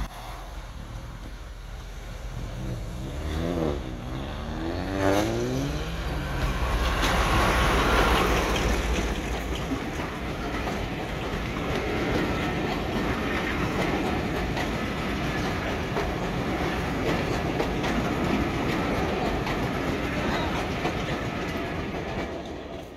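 A diesel locomotive passes at speed hauling a rake of passenger coaches. Its engine builds to its loudest about eight seconds in as it goes by. The coaches then roll past with their wheels clicking over the rail joints, and the sound fades away near the end.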